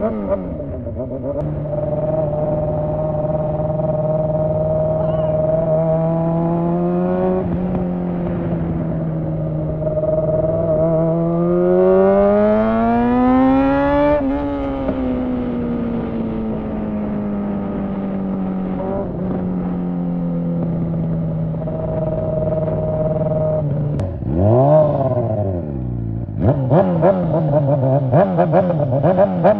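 Honda CBR600 inline-four motorcycle engine running with no exhaust fitted, a raw open-header sound. It holds a steady note, climbs in pitch for a few seconds and falls back, holds steady again, gives one quick sharp rev near the end, then runs with a choppy, uneven note.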